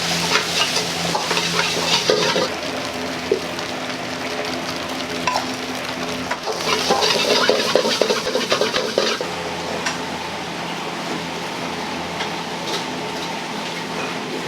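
Food sizzling as it is stir-fried in a hot wok, surging loudly twice, with metal clinks of the ladle against the pan over a steady kitchen hum.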